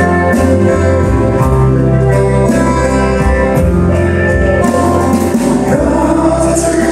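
A man singing a country song live into a microphone, backed by an acoustic guitar and a steady bass line.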